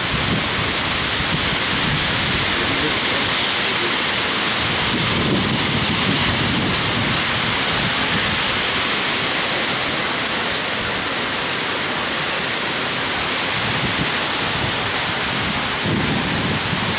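Heavy rain pouring down on grass and pavement, a steady loud hiss, with a few low rumbles about a third of the way in and again near the end.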